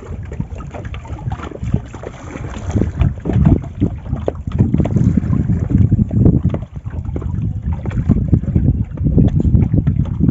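A freshly hooked bhola croaker fish giving loud, frog-like croaks in quick, low pulses as it is hauled up on the longline, with wind buffeting the microphone.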